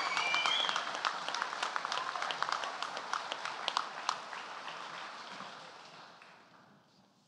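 Audience applause: many hands clapping, with a whoop right at the start, dying away over the last couple of seconds.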